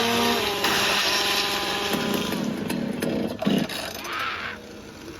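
Chainsaw engine revving up and down, then dying away about four and a half seconds in.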